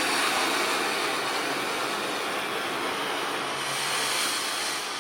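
TNT Showcase Cone firework fountain burning, a steady rushing hiss as it sprays sparks.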